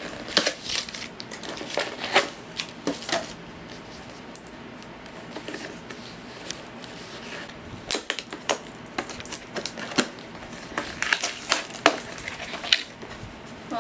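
GoPro Hero retail packaging being torn open and handled by hand: cardboard and paper ripping, with a string of sharp clicks and crackles that grows busier in the second half.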